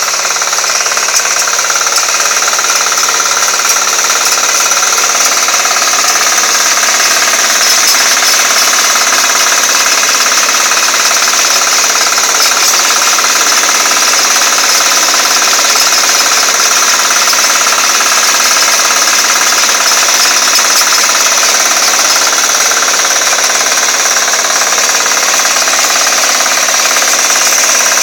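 Single-cylinder engine of a walk-behind hand tractor running loud and steady as the machine tills weedy soil.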